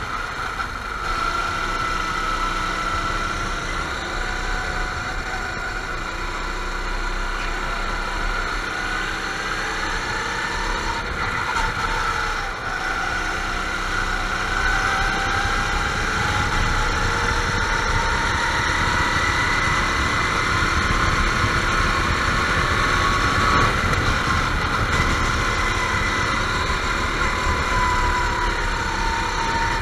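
Several go-kart engines running together on a race track, their high-pitched notes overlapping and rising and falling as the karts speed up and slow down.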